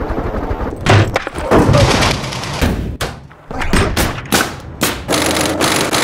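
Gunfire: after a steady rumble in the first second, a string of irregular rifle shots and thuds, each with a short echoing tail.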